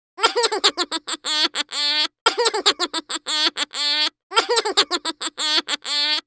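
A short, high-pitched, voice-like sound effect played three times in a row, each about two seconds long: a quick patter of short notes, then a few longer held notes.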